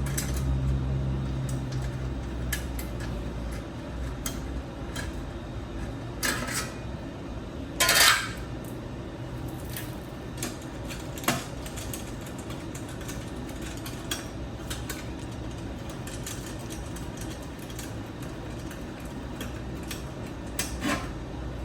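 Scattered clinks and knocks of hard parts being handled and fitted while a sluice box attachment is swapped, with one louder clattering scrape about eight seconds in. A low hum fades out in the first few seconds.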